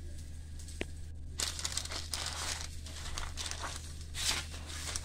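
Irregular rustling and crinkling, starting about a second and a half in, over a low steady hum.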